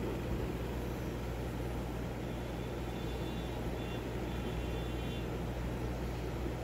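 Steady low hum and rumble with background noise, with a faint thin high tone for a few seconds in the middle.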